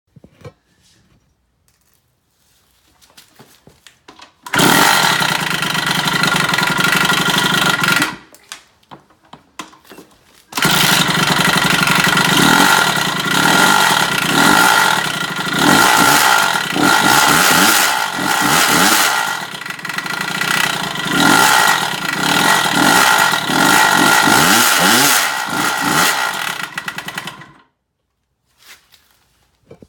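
Kawasaki KX65 65cc two-stroke dirt bike engine catches about four and a half seconds in, runs for a few seconds and stops. It starts again about two seconds later and runs for about seventeen seconds with repeated throttle blips, then cuts off. It makes a knock that the owner cannot identify and counts among its bad engine noises.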